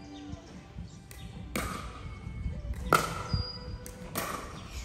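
Three sharp hits of a ball during a doubles rally, about a second and a quarter apart, with a brief high shoe squeak on the court between the second and third.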